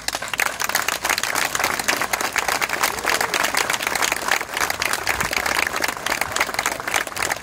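Audience applauding: many hands clapping together, breaking out suddenly and going on as a dense, steady clatter.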